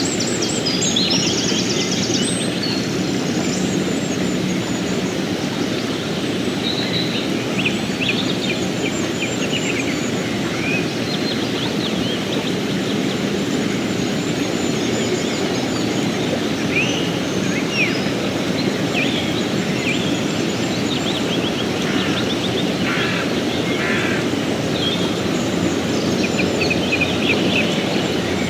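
Fast mountain river rushing steadily over rocks, with small birds chirping now and then above the water.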